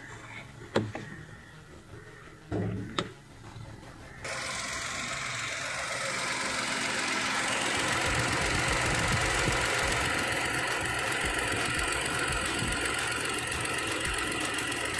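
A few knocks, then about four seconds in a steady rush of noise starts abruptly and builds over the next few seconds. This is the VW Polo's electric radiator cooling fan spinning with the engine idling at working temperature, the fan running properly.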